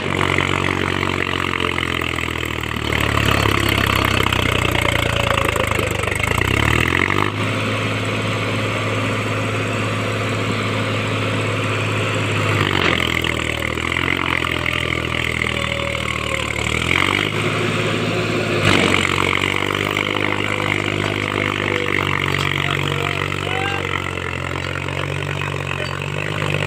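Mahindra 265 DI tractor's three-cylinder diesel engine running hard under load, its revs rising and falling several times as the tractor, stuck in mud with a hitched trailer, strains to pull free.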